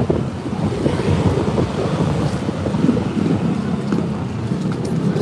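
Vehicle engine running steadily while riding, with wind buffeting the microphone.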